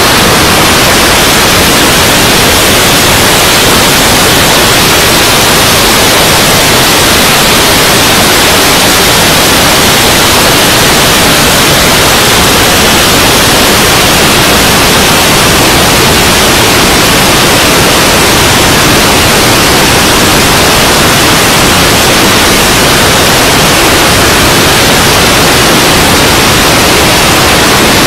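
Loud, steady rushing hiss on the onboard camera of an RC turbine jet in flight: airflow and engine noise swamping the small microphone, with no distinct turbine whine.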